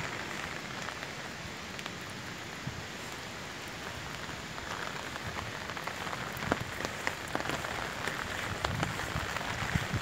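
Rain falling steadily, with sharp close drops ticking more often and louder from about halfway in.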